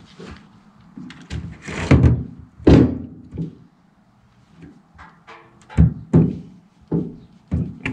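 A series of thunks and clunks from parts being handled and set down during assembly work, the loudest about two and three seconds in.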